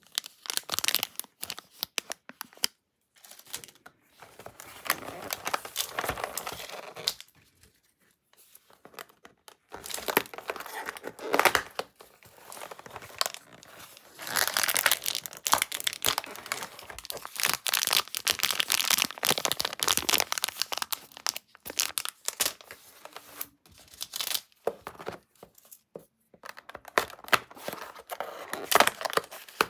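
Haribo advent calendar packaging being torn open and crinkled by hand, in irregular crackling bursts with short pauses.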